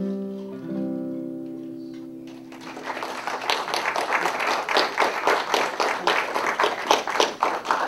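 The last notes of a song on an acoustic guitar ring on and fade away, then an audience claps from about two and a half seconds in.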